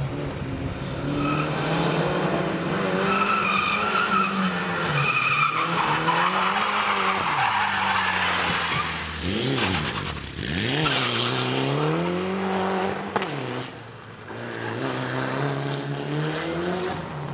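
Rally car engine revving hard, its pitch climbing and dropping again and again through gear changes and corners, with tyres squealing through the first few seconds. The engine drops away briefly about three-quarters of the way through, then revs again.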